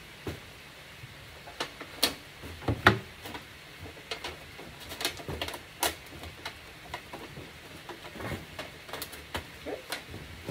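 Thin aluminum sheet crackling and clicking irregularly as it is handled and its edges are glued and pressed down. The sharpest clicks come about two and three seconds in.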